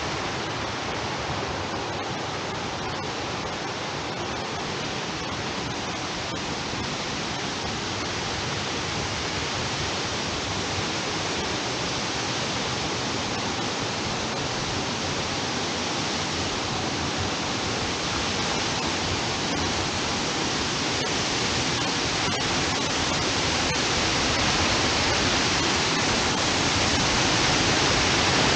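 Steady rush of a waterfall and its creek, growing gradually louder as the trail nears the falls.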